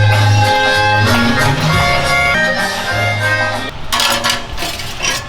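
Background music beat: a held melody over a heavy bass line, with a run of sharp clicks near the end.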